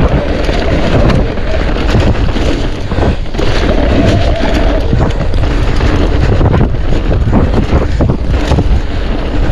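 Wind buffeting the microphone over the rumble of mountain bike tyres on a rough trail, with the bike rattling and knocking over bumps.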